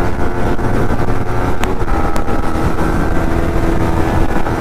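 Motorcycle engine running steadily while riding at speed, over a heavy low rush of wind noise. Two brief faint clicks come about half a second apart near the middle.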